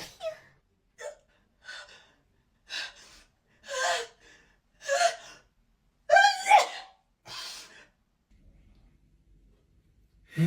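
A person acting out a drawn-out sneeze: a run of short gasping breaths about a second apart, each louder than the last, building to a loud voiced sneeze about six seconds in, followed by one smaller breath.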